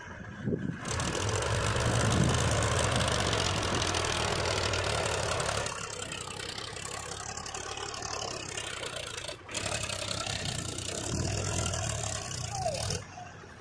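Powertrac 434 DS tractor's diesel engine running under load as it hauls a trolley heaped with mud out of a soft field. It is loudest in the first half, then drops in level with a couple of abrupt breaks.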